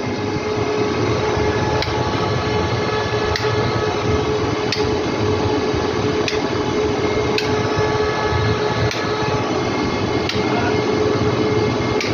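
Inverter generator running steadily, a constant hum with a faint tick about every second and a half.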